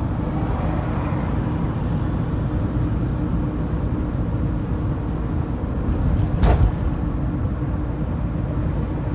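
Ford Transit van driving, with steady engine and tyre rumble and a faint constant hum. A single sharp knock about six and a half seconds in.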